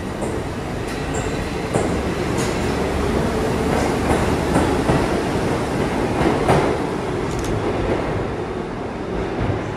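New York City subway train of R62-series cars running through the station. A steady rumble with wheels clicking over the rail joints swells to its loudest about six and a half seconds in, then eases off.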